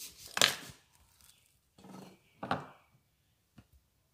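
A plastic squeeze bottle of tomato sauce being handled and opened over a plate: a few short scrapes and rustles, the loudest about half a second in, with softer ones about two seconds in.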